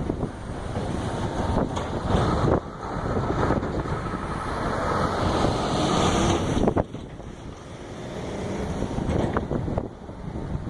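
Gusty wind noise on the microphone over the low rumble of a vehicle, cutting down sharply twice.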